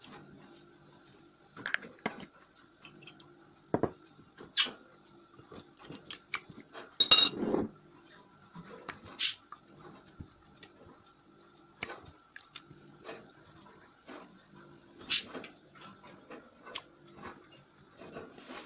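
Slime being mixed and handled in a container: scattered clicks, clinks and squishes, with a louder, longer squelch about seven seconds in.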